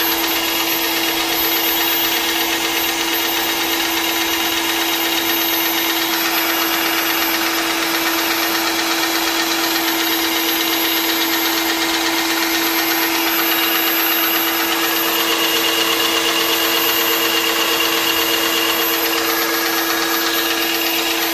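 Vonder MPA1010 airless paint sprayer's electric motor and pump running steadily at full speed: a loud, even hum with a faint high whine above it.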